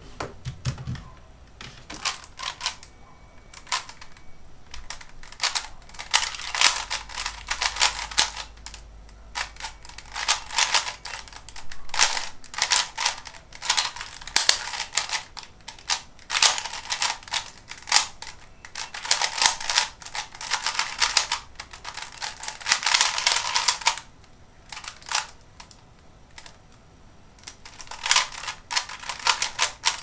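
Type C DIY 3x3 Rubik's cube being turned rapidly by hand in a speedsolve: fast runs of plastic clicking and clacking from the layer turns, broken by short quieter pauses.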